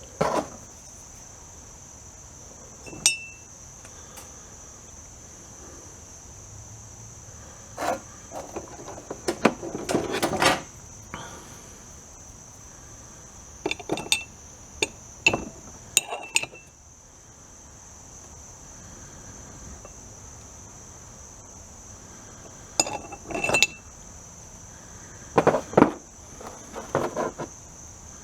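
Scattered clinks, taps and scrapes of a small metal diecast car and hand tools being handled while its paint is stripped, some coming in quick clusters, over a steady high-pitched chirring.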